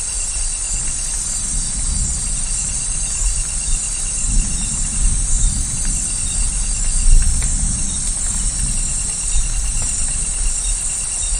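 Thunder rumbling low and rolling, swelling about four seconds in, over steady rain. An insect trill of rapid pulses comes and goes in short spells above it.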